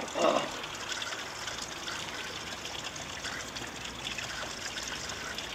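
Water running steadily from a stone fountain's spout into its basin. A brief louder sound comes right at the start.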